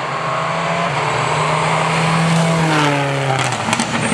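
Turbocharged four-wheel-drive rally car passing at speed. A steady engine note grows louder, then drops in pitch as the car goes by, about three seconds in.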